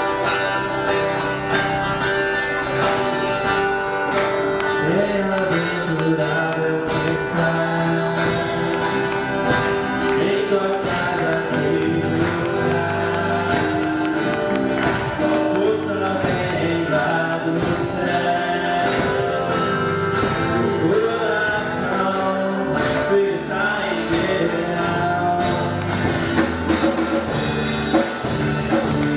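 Gospel song played by a band, with guitar prominent.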